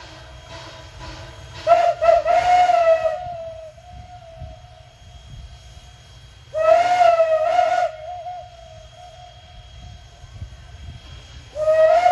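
The shrill single-note banshee whistle, a former Pennsylvania Railroad freight-engine whistle, on Strasburg Railroad's 2-6-0 steam locomotive No. 89, blown in three blasts about five seconds apart. Each blast lasts a second or so and sags slightly in pitch at its end. A fainter steady whistle tone hangs on between the blasts.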